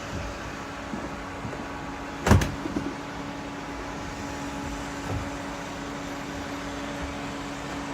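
Robot vacuum cleaners running with a steady motor hum. A single sharp knock comes a little over two seconds in.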